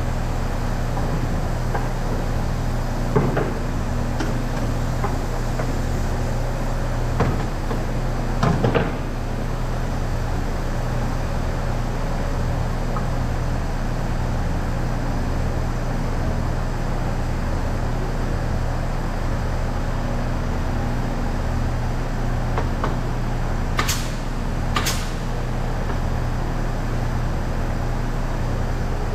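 Steady low hum of running workshop machinery, with a few knocks and clicks, including two sharp clicks about a second apart near the end.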